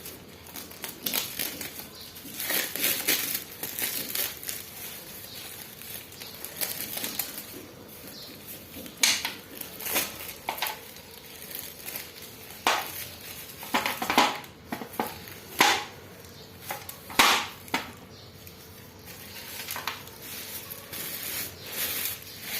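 Parcel packaging handled and crinkled by hand: continuous irregular rustling, with several sharp, loud crackles in the second half.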